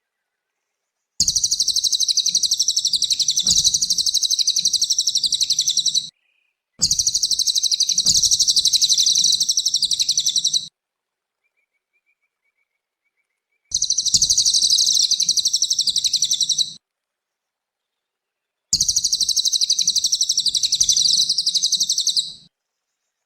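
Cililin songbird singing a fast, high-pitched chattering song in four long bursts, each a few seconds long, separated by silent gaps.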